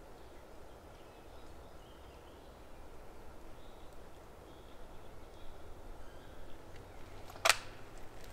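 Quiet forest air with a few faint bird chirps, then a single sharp click about seven and a half seconds in: the lid of a sighting compass snapping shut.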